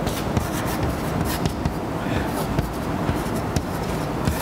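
Chalk tapping and scratching on a blackboard as a formula is written: a run of short, irregular clicks over steady background hiss.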